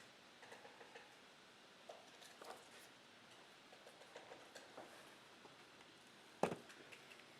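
Quiet handling of trading cards: scattered faint light clicks and rustles, with one sharp click about six and a half seconds in.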